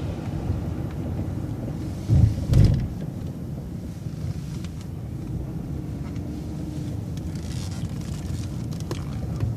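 Low, steady engine and road rumble inside an MCO ViewMaster transit bus as it rounds a roundabout, with two short thumps a fraction of a second apart about two seconds in.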